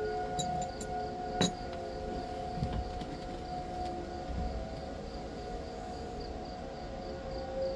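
Outdoor warning siren sounding a storm warning: a steady wail of several tones held together that swells and fades gently. A sharp click cuts in about a second and a half in.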